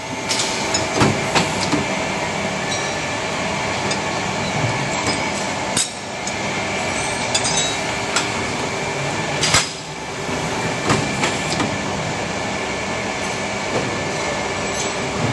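Shoe-making machinery running steadily, with a faint steady hum and scattered sharp metallic clicks and clinks. The sound breaks off briefly twice, about six and ten seconds in.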